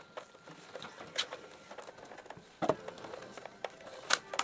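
Scattered clicks and knocks of a plastic PC monitor casing being gripped and turned by hand, the loudest a little past halfway, with two more close together near the end.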